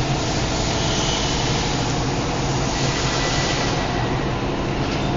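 Steady mechanical hum with an even hiss from running shop machinery, holding at one level with no starts or stops.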